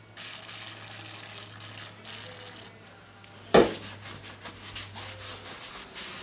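Aerosol brake cleaner hissing in sprays onto a metal steering spindle to degrease it. About three and a half seconds in comes a sharp knock, followed by a cloth rag rubbing the spindle in quick, uneven strokes.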